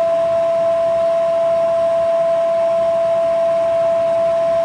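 Milling machine running with a steady high-pitched whine over a hiss, its spindle turning a homemade brazed-carbide fly cutter to deck a 1927 Chevy cast-iron engine block.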